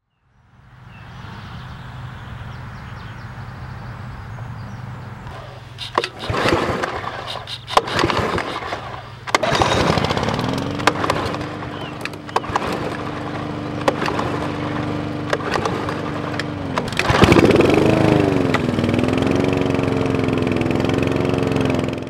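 Petrol lawn mowers being started: several sharp, irregular strokes, then an engine catching and running on a steady note. Later a second start: a loud onset, then an engine note that dips and wavers before settling into a steady run.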